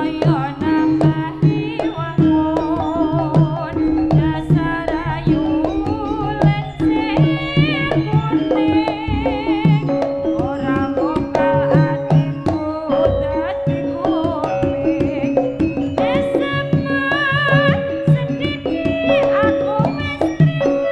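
Live Javanese jaranan ensemble music: hand drums and repeating pitched percussion under a wavering melodic line, with a long held note coming in about halfway through.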